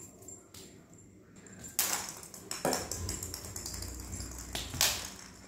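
A few sharp taps and knocks, about three, the loudest about two seconds in, over a low rumble partway through.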